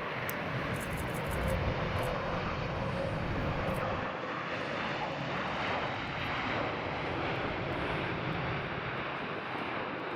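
Jet airliner's engines, a steady broad rushing noise that is loudest about a second and a half in and then eases slowly.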